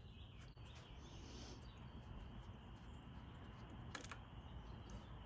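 Near silence: faint background hiss, with one faint click about four seconds in.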